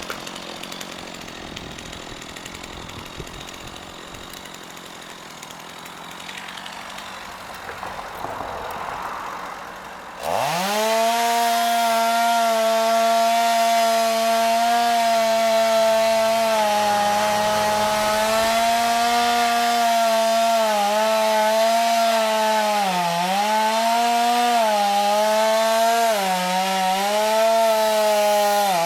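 About ten seconds in, a Stihl chainsaw is opened up to full throttle and cuts into a pine trunk. Its high engine note holds steady, with short dips in pitch as the chain bogs down in the wood.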